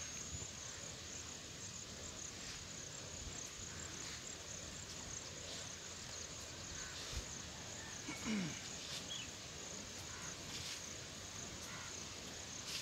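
Insects chirring steadily and faintly as a thin, even high tone over quiet field ambience, with a brief faint sound about eight seconds in.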